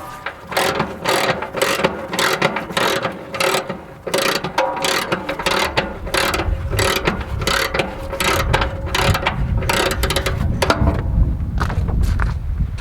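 A hand ratchet clicking in quick, repeated strokes while a fitting on a sawmill is snugged up after a blade change. A low rumble builds in the last few seconds.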